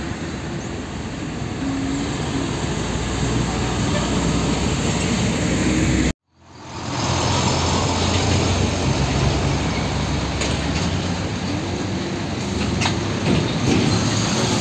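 Heavy diesel trucks passing close by on a road: engines running under load with tyre and road noise. The sound drops out suddenly about six seconds in and fades back in.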